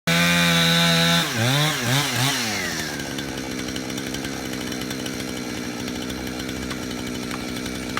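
Chainsaw engine running at a steady high speed, then its pitch dips and rises three times before it settles to a lower, steady idle.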